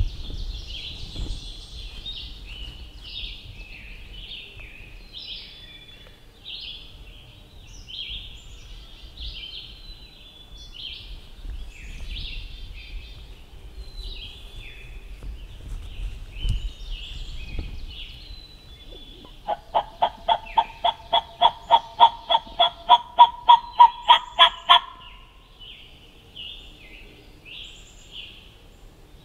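A long run of turkey yelps, about twenty notes at roughly four a second, growing louder toward the end, over small songbirds chirping.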